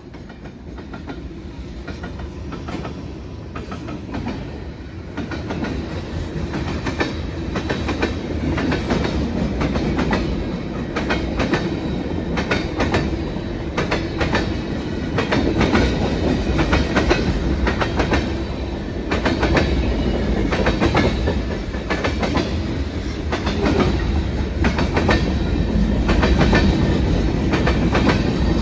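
A train rolling past, its wheels clacking over rail joints in a steady run of clicks over a low rumble. It grows louder over the first ten seconds or so, then holds.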